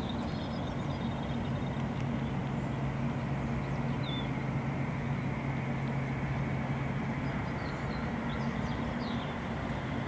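Steady low mechanical hum over a wash of background noise, with a few faint, short high chirps now and then.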